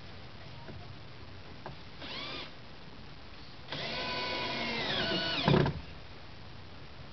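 Cordless drill-driver running twice: a short spin-up about two seconds in, then a run of about two seconds driving a screw into the wooden roof batten, its pitch dropping under load near the end before it stops.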